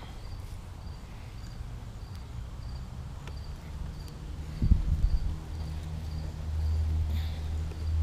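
A cricket chirping steadily, one short chirp about every two-thirds of a second, over a low rumble. About halfway through come a few low thumps, and from about six seconds in a louder low hum.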